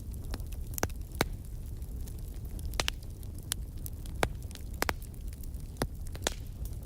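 Wood fire crackling: irregular sharp pops and snaps, about ten of them, over a steady low rumble of the burning fire.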